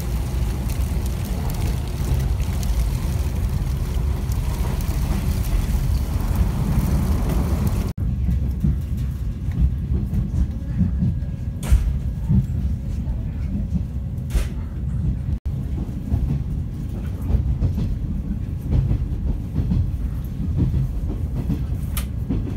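Running noise of a JNR 455-series express-type electric train, heard from inside the passenger car. A steady rumble comes from the running gear, with a few sharp clicks from the wheels over rail joints. A brighter hiss in the first part gives way to a deeper rumble.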